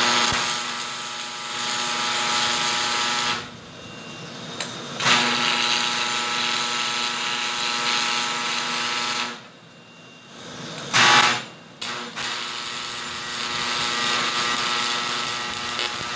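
Stick (SMAW) welding arc crackling and hissing as a fabricated steel center is welded into a harvester wheel rim. It runs in stretches of a few seconds, stopping briefly about 3.5 s in and again about 9.5 s in, and picks up again a second or so later each time.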